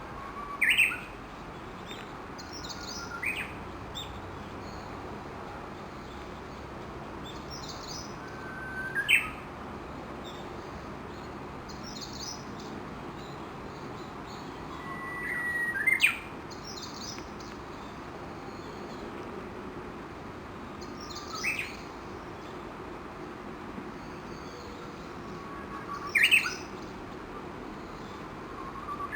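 Japanese bush warblers singing their 'hoh-hokekyo' song. About six phrases come several seconds apart, each a held whistle that breaks into a quick rising flourish, over a steady background hiss.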